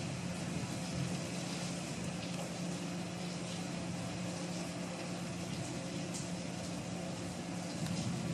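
Steady hiss of heavy rain, with a few faint drop clicks and a low steady hum beneath it.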